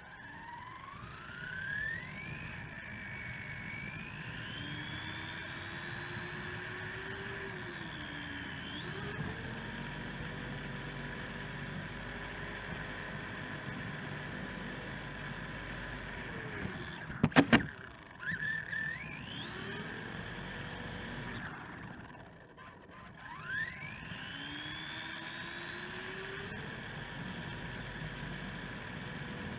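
Electric RC short-course truck's motor and drivetrain whining as it runs fast on pavement. The pitch rises smoothly as it speeds up and drops as it slows, three times. Partway through comes a brief cluster of loud, sharp knocks.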